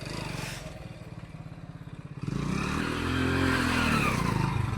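Motorcycle engine running with a steady low pulse. About two seconds in it gets louder, revving up and then easing off again.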